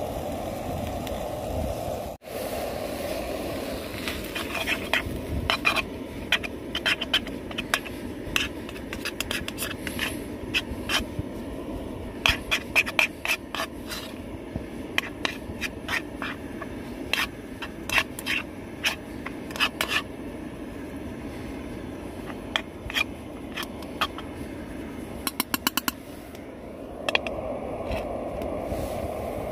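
A spoon scraping and clinking against a metal camping frying pan as minced beef and kidney beans are stirred and broken up. The strokes come in quick, irregular runs from a few seconds in until near the end, over a steady hiss of the meat sizzling on the gas stove.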